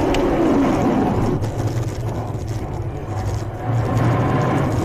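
Car crash aftermath heard from inside the crashed car as it slides off the road into snow behind a shattered windshield: loud rumbling and scraping noise, with a falling tone in the first second.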